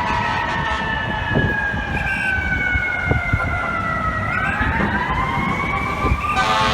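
Fire truck siren wailing, its pitch falling slowly for about four seconds and then winding back up, over the rumble of the truck. An air horn blast starts near the end.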